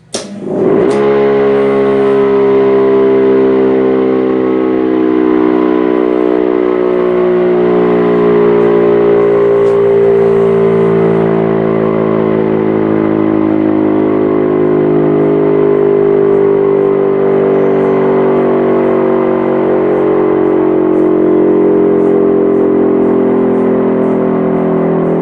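Lion King JDL400 2.2 kW electric motor siren sounding. It sweeps up in pitch about half a second in, then holds a loud, steady note of several tones. It is run only as a test, short of its full power.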